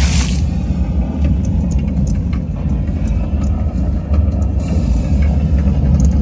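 A deep, steady rumble, heavy in the lowest notes, with faint scattered clicks over it.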